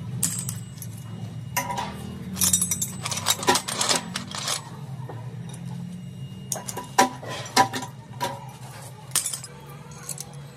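Metal parts clinking and knocking against one another as they are handled, in irregular bursts with a dense cluster a few seconds in, over a steady low machine hum.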